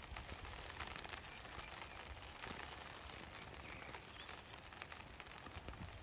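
Faint outdoor ambience: wind rumbling on the microphone, with a light rustle of plants and small scattered ticks.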